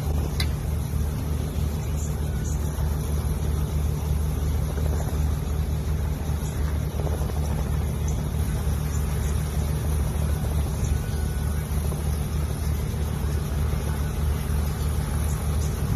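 Small helicopter idling on the ground: a steady low engine hum that holds an even level.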